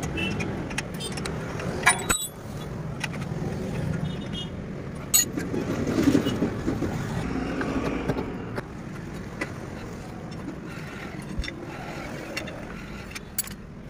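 Sharp metallic clinks and taps of a wrench and brake caliper hardware being handled during brake pad removal, a few of them ringing briefly, loudest about two and five seconds in. Under them runs a steady low background rumble.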